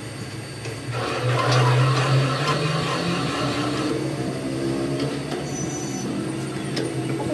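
A machine running with a steady hum that gets louder about a second in and briefly rises in pitch.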